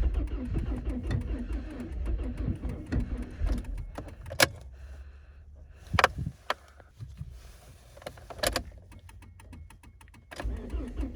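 1999 Volvo S40's 1.8-litre four-cylinder engine running unevenly after a cold start, the sign of a car that barely starts and runs badly. About four seconds in it drops to a quieter hum for several seconds, broken by a few sharp clicks, then comes back up near the end.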